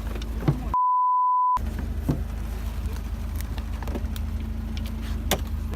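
A single edited-in beep, a pure steady tone under a second long, replaces all other sound about a second in. Around it a UAZ engine runs with a steady low drone, with a few sharp knocks.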